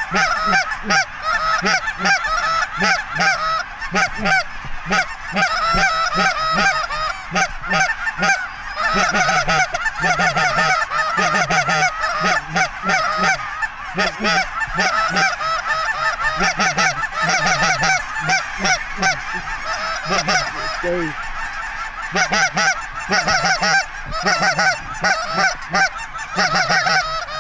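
Goose honks and clucks in a rapid, unbroken stream of many overlapping calls, several a second.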